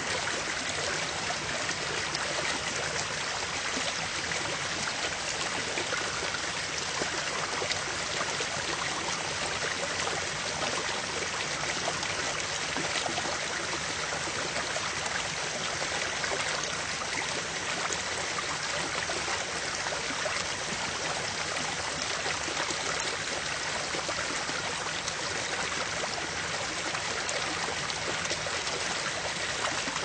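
River water flowing, a steady, even rush of moving water with no breaks or changes.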